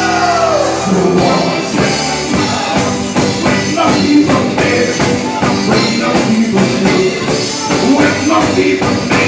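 Live band playing an upbeat gospel song, with a steady drum beat and a little singing over it.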